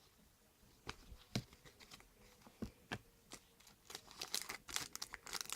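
Trading cards and a shiny card-pack wrapper being handled: a few light clicks and taps, then a run of crinkling from the wrapper from about four seconds in.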